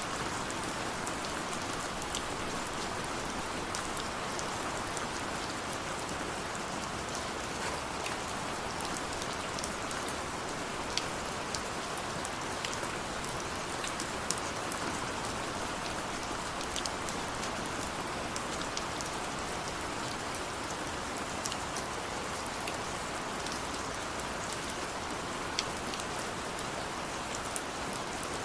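Steady rain falling, an even hiss with scattered sharper individual drop ticks.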